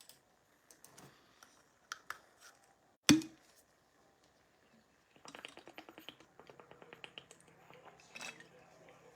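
Scattered light taps and one sharp knock about three seconds in, then a fast, even run of small clicks, like typing on a computer keyboard, from about five seconds on.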